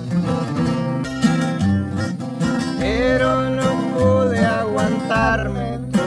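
Acoustic guitars playing a corrido in a steady strummed rhythm with picked lead lines and bass runs; from about halfway a voice comes in with sliding, held notes.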